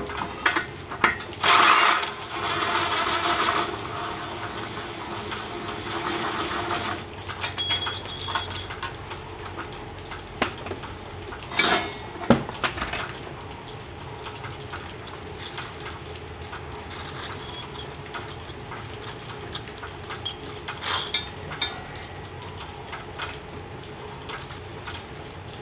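Steel brush-guard parts, nuts and washers clinking and scraping on a concrete floor as the guard is unbolted by hand. A louder scraping rattle comes about two seconds in, and sharp metal clinks come around twelve seconds in.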